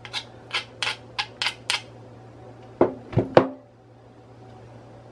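Marble pestle knocking against a marble mortar: a quick run of about six light, sharp taps, then three heavier knocks close together about a second later.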